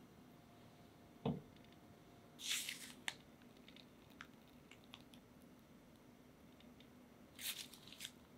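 Chocolate custard squelching out of a piping bag into pastry shells: two short squishy bursts, about five seconds apart. A single dull knock comes about a second in, before the first burst.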